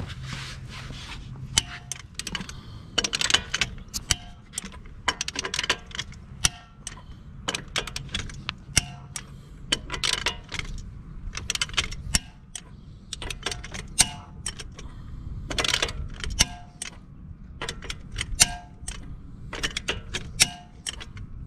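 Hand wrench ratcheting on lug nuts in short runs of sharp metallic clicks, stroke after stroke, as the wheel's lug nuts are tightened to torque. A low steady hum lies underneath.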